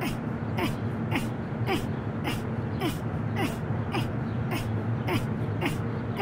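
A cartoon caterpillar grunting with effort as it does crunches, a short falling grunt with a sharp breathy edge about twice a second, evenly paced, over a steady low hum.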